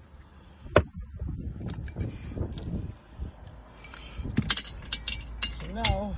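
Metal clicks and clinks as an aluminium mounting post and its round metal base are handled and set in place: one sharp click about a second in, then a run of lighter clinks later on. A short wavering tone sounds near the end.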